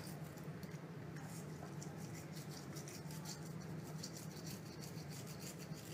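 Toothbrush bristles scrubbing and clicking on a Maltese puppy's teeth as it chews at the brush: a run of faint, quick scratchy ticks over a low steady hum.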